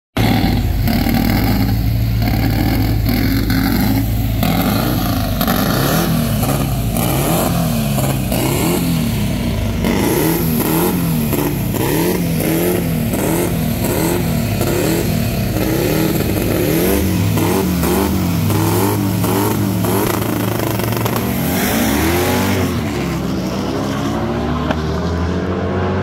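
Drag-racing cars at the start line, a Dodge Charger SRT and a race-built VW Sedan. Their engines are revved over and over in quick rising-and-falling blips, then hold a steady tone. Near the end they launch with a sharp rise in engine pitch and pull away down the quarter-mile strip.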